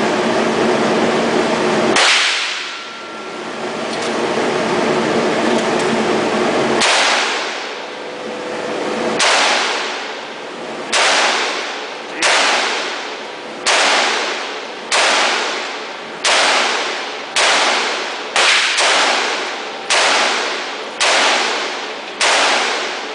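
Semi-automatic AR-15 rifle in .223 firing about fourteen single shots: spaced out at first, then roughly one a second, with two fired close together near the end. Each crack dies away over about a second.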